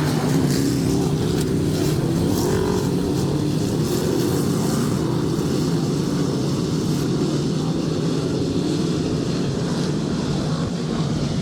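A field of dirt modified race cars running together on the oval, a steady, loud rumble of many V8 engines blended into one drone without sharp revving.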